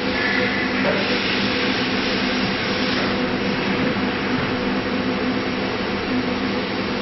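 Steady running noise of shop machinery around a CNC router, an even hiss with a low hum that does not change.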